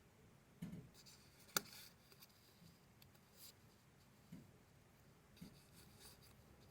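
Sheets of paper being handled and rustled, with soft scattered rubs and light taps and one sharp click about one and a half seconds in.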